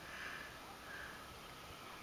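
A Cavalier King Charles spaniel sniffing quietly: two short, faint sniffs about a second apart.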